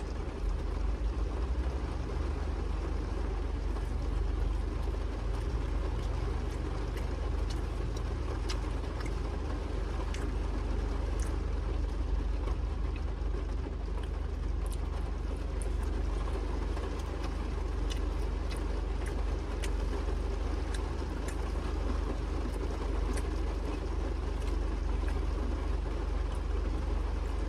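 Steady low hum and hiss of a car cabin, with scattered small clicks throughout.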